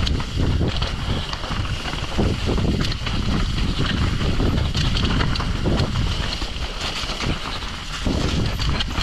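Mountain bike running fast down a rough dirt trail: wind buffeting the microphone, tyre noise and an irregular clatter of knocks as the bike hits bumps.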